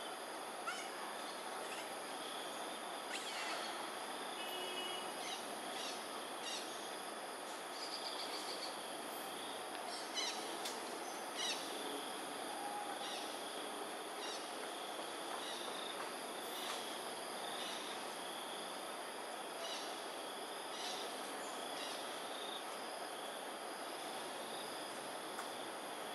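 Steady insect chorus, a continuous high-pitched buzz over a constant outdoor hiss, with short chirps scattered throughout, the loudest a few together about ten seconds in.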